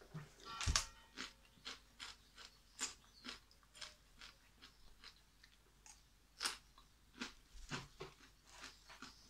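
A person chewing crunchy raw vegetables, with crisp crackling crunches at an uneven pace, roughly two a second.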